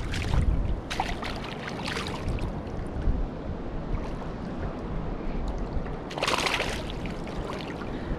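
Shallow reef water sloshing, with low wind rumble on the microphone and several short splashes from a hooked moi thrashing at the surface as it is landed by hand; the longest splash comes about six seconds in.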